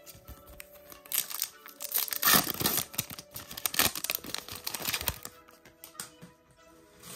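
Foil wrapper of a Goddess Story trading-card booster pack being torn open and crinkled by hand as the cards are pulled out. The crinkling is loudest about two and a half seconds in and dies away after about five seconds.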